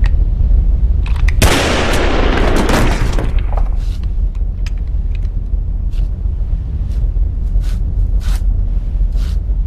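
A single pistol gunshot about one and a half seconds in; its loud blast rings out and dies away over more than a second. A deep steady rumble runs underneath, and a few short sharp sounds follow later.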